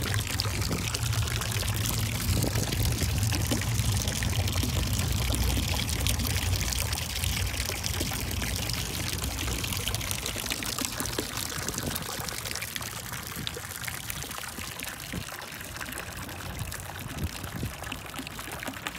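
A thin stream of water pouring from a fountain spout and splashing into the water of a stone basin, a steady splashing trickle that grows fainter over the second half.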